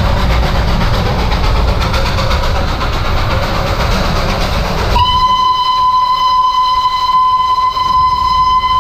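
Darjeeling Himalayan Railway steam locomotive hissing steam over a low rumble. About halfway through, its whistle starts: one long, steady, high note.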